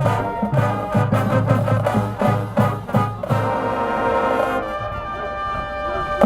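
Marching band brass playing over regular drum hits, then holding a long sustained chord from about three seconds in.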